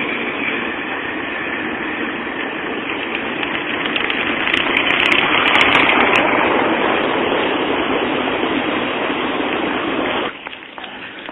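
Street traffic noise: a tram rolling away round the corner and a car passing close by, loudest about six seconds in. The noise drops away abruptly near the end.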